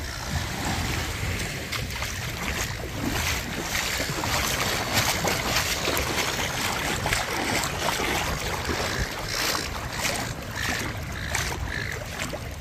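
Jet ski running over open water, heard mostly as wind rushing on the microphone with water splashing and spraying.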